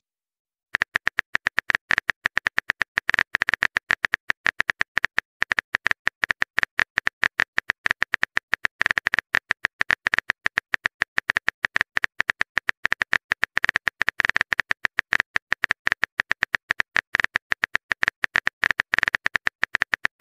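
Keyboard typing clicks from a texting app as a long message is typed out: short, sharp clicks coming several a second, with a few brief pauses.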